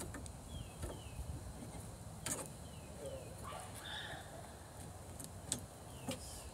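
A few sharp clicks and taps from hand work on a golf cart's roof strut and windshield bracket, over outdoor ambience with small birds giving short falling chirps.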